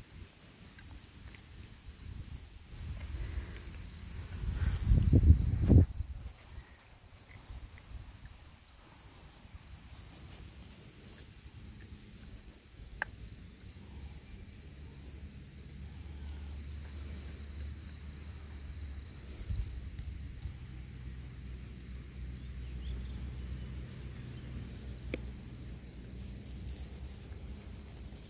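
Steady, high-pitched insect chirring, one unbroken tone throughout. A brief, louder low rumble comes about five seconds in.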